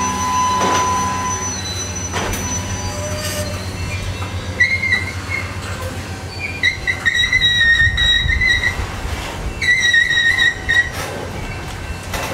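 Cars of a slow-moving CN freight train rolling past with a steady low rumble and a few clacks early on. From about a third of the way in, the cars give off several bursts of high-pitched metal squealing.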